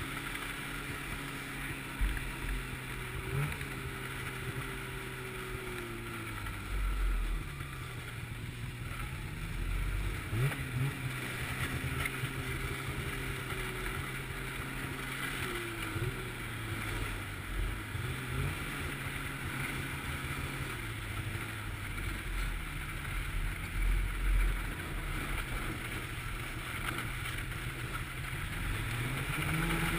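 Snowmobile engine running steadily while ridden at speed, its pitch easing off and climbing back up several times with the throttle, with some wind noise on the microphone and a few short low thumps.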